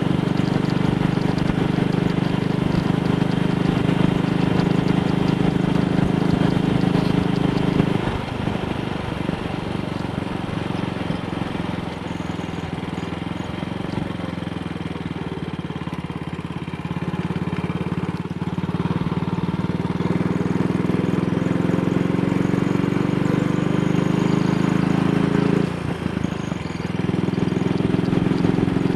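AJS Model 8 motorcycle engine running on the road, its exhaust note steady, then easing off about eight seconds in, climbing steadily later on and dropping sharply near the end. It runs cleanly with no misfire now that the carburettor needle clip is seated properly. Wind and road noise sit under the engine.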